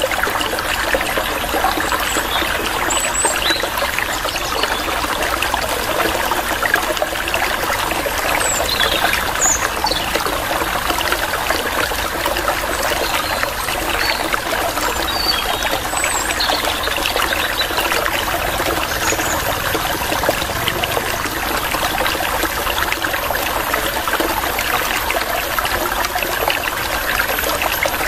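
A steady stream of water trickling, with short, high bird chirps here and there over it.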